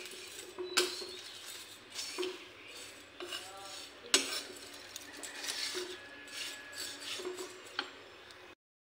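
Steel spoon stirring and scraping vermicelli frying in ghee in a black kadhai, with irregular clinks of metal on metal and a sharp clink about four seconds in. The sound cuts off abruptly near the end.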